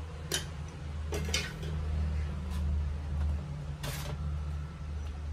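A steady low hum with about four short sharp clicks over it, the loudest near four seconds in.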